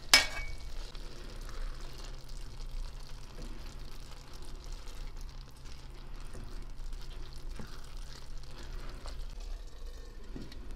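A pot of rice pilaf bubbling and crackling on the stove as the last of its broth cooks off. There is a steady fine crackle and hiss, with a sharp click right at the start.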